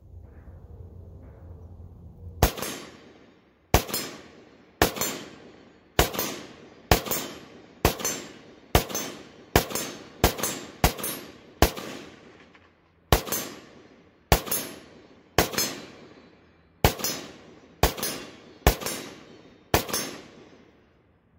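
Semi-automatic AK-pattern rifle (WASR-10/63 in 7.62x39) firing a string of about eighteen shots, roughly one a second and a little quicker near the middle, each crack trailing off in an echo.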